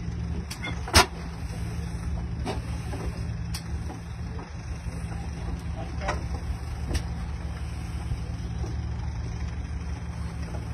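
The 1912 Rumely OilPull 30-60's two-cylinder engine running with a steady low drone, broken by a few sharp, irregular bangs. The loudest bang comes about a second in.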